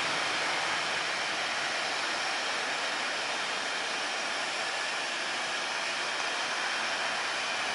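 Twin rear-mounted turbofan engines of a business jet running at taxi power, a steady rushing jet noise with no clear pitch.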